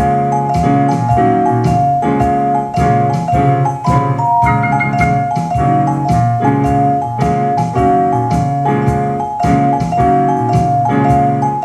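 Jazz music: keyboard and mallet-like pitched notes over a steady percussive beat.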